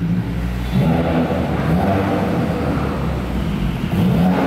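Subaru WRX's turbocharged flat-four breathing through a titanium Tomei Expreme single-exit exhaust. It drives through a concrete parking garage, its pitch rising and falling several times under throttle and getting louder about a second in.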